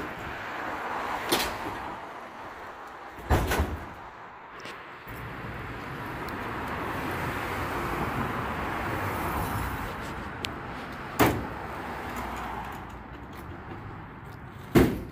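A few sharp metal knocks and bangs from an enclosed cargo trailer as its load is handled. A vehicle passes on the street in the middle, and the trailer's door is slammed shut near the end with the loudest bang.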